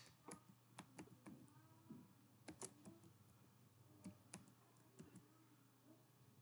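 Faint computer keyboard typing: irregular keystroke clicks, several a second at first and thinning out toward the end.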